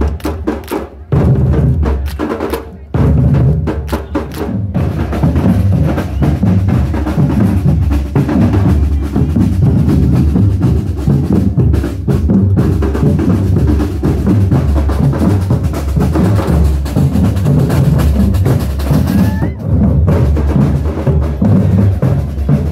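Samba percussion band playing: a massed section of surdo bass drums struck with mallets, with snares and other percussion, in a driving carnival samba rhythm. The drumming stops and restarts several times in the first few seconds, then plays without a break.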